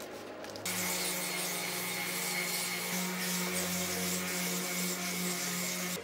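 Electric random orbital sander switched on about half a second in, its motor running steadily with a hum and a high whine under the hiss of the spinning sanding disc, used to sand a 3D-printed plastic part.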